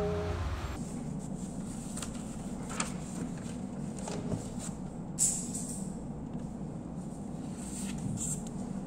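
Sheets of printed paper being handled and turned at a desk: faint scattered rustles and crisp ticks, one sharper snap about five seconds in, over a steady low room hum. Background music fades out just after the start.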